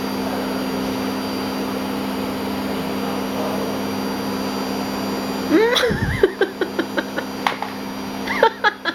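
Vacuum cleaner running with a steady hum. About five and a half seconds in, high-pitched squeals break in over it, with a thump and a few sharp clicks.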